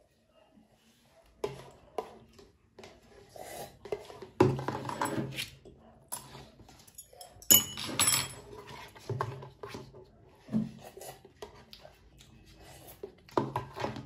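Eating utensils clattering and scraping against a cup-noodle cup, with knocks of the cup and glass on a table; irregular knocks and scrapes, loudest about four seconds in and again about seven and a half seconds in.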